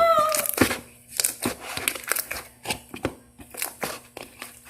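Slime being squeezed and worked by hand, giving an irregular run of small sticky clicks, crackles and pops. A girl's drawn-out cry trails off at the start.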